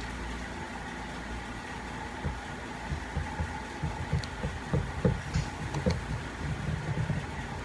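Irregular low thuds and rubbing from handling and cleaning a tow-truck wheel-lift hydraulic cylinder. They start about two seconds in and grow busier toward the end, with a few light clicks, over a steady shop hum.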